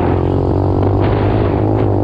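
A 125cc dirt bike engine running steadily in a continuous drone, holding a fairly even speed with a slight waver in pitch.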